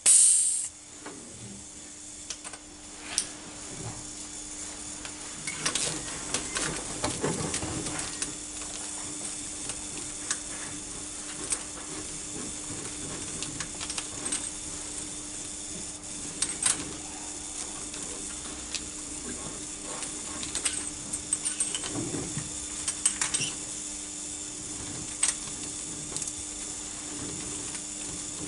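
A short loud hiss of air as a diesel compression tester's gauge is bled down after a cylinder reading. It is followed by scattered metallic clicks and rattles of hand tools being worked on the engine's cylinder head, over a steady low hum.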